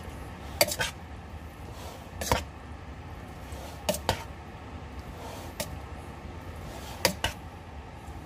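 A cooking utensil knocking against the pot as macaroni, sausage and bacon are tossed together: sharp clinks, mostly in pairs, every second or two.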